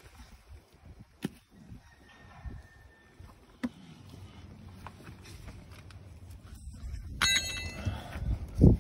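Truck wheel and tire being lifted and rolled over grass: a few light knocks, a short bell-like metallic ring about seven seconds in, and a heavy thump near the end.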